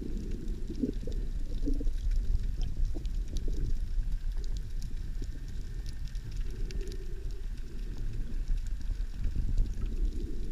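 Muffled underwater rumble of moving water heard through a camera's waterproof housing, with faint scattered clicks.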